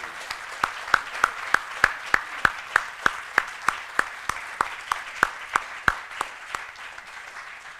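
Audience applauding, with one pair of hands clapping close by about three times a second and standing out above the rest until near the end, when the applause dies away.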